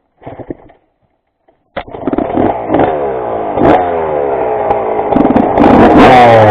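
Worn-out Honda motorcycle engine cutting in suddenly about two seconds in and then revving up and down unevenly.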